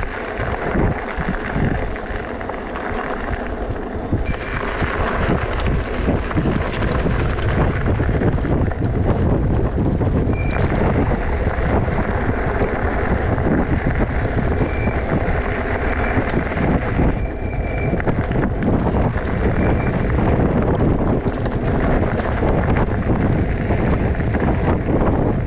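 Steady wind rush buffeting the microphone while riding an electric bike, with a low rumble and a few short, faint high chirps.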